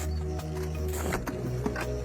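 Background music with sustained low notes and held chords.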